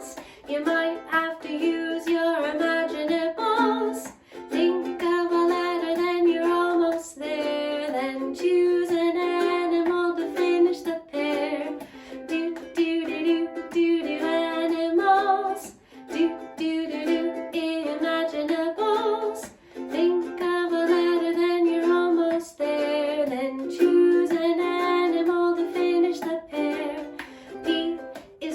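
A children's singalong song: a woman singing over plucked-string accompaniment, strummed in a steady rhythm.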